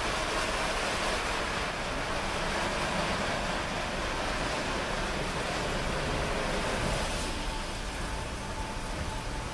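Automatic rollover car wash running: a steady rush of water spray and spinning brushes on the car. About seven seconds in, the hiss eases and a steady whine comes in.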